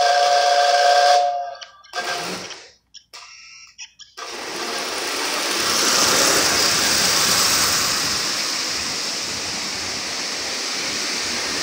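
Lionel Commodore Vanderbilt toy train's whistle blowing a steady tone for about a second, then cutting off. After a short gap, from about four seconds in, the train runs along the toy track with an even rushing rattle that is loudest as the locomotive passes close, about six seconds in, then holds steady.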